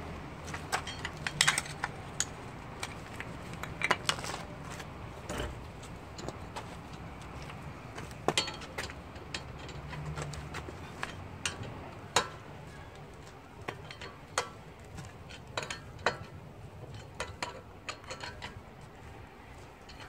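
Hand work at a van's steel wheel and hub: irregular sharp metal clinks and clicks as wheel bolts and the wheel are handled and fitted.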